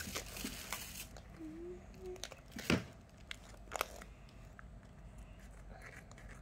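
Scissors snipping through a vacuum-sealed plastic pouch, with the plastic crinkling as it is handled. A few sharp clicks stand out, the loudest about three seconds in.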